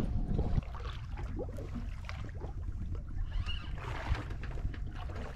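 Water sloshing and lapping against the hull of a small drifting boat over a steady low rumble, with scattered small clicks and knocks.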